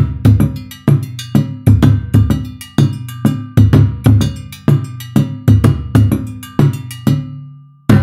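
Sampled West African hand drums from Native Instruments' West Africa Kontakt library playing a repeating rhythm pattern at 126 BPM, deep bass strokes mixed with sharp slaps. Near the end the pattern breaks off, the last stroke rings out, and the pattern starts again.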